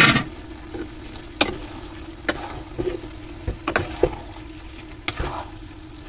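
Wooden spatula stirring and turning noodles and vegetables in a hot nonstick pan over a steady sizzle. There are several short scrapes and knocks of the spatula against the pan.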